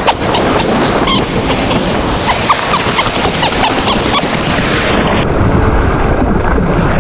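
Wind buffeting the microphone over crashing surf and splashing water as a man runs into the ocean waves. About five seconds in the sound turns muffled as water washes over the camera.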